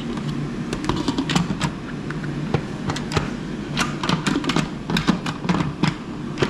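Plastic lid of an electric pressure cooker clicking and clattering against the pot in many quick, irregular knocks as it is fitted and twisted to lock it on.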